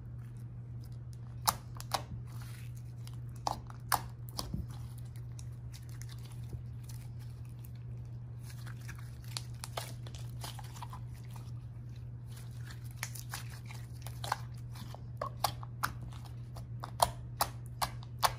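White slime being kneaded and squeezed by hand: scattered sticky pops and clicks, coming more often in the last few seconds, over a steady low hum.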